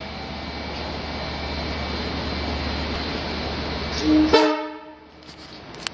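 LIRR C3 bilevel push-pull train rolling past as it departs, a steady rumble of wheels on rail. About four seconds in comes one short horn toot, the loudest moment, and then the sound drops away sharply.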